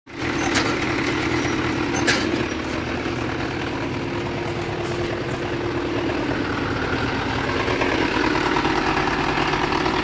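Mahindra Yuvo 575 tractor's diesel engine running steadily, with a couple of sharp clicks in the first two seconds.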